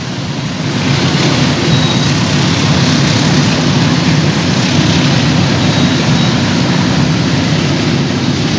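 A cement freight train rolling past across open fields, a steady low rumble of wagons with an even hiss over it.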